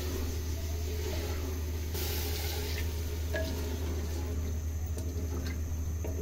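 A wooden spoon stirring potato chunks and peas through a wet chicken masala in a clay handi, with a few light knocks of the spoon, over a steady low hum.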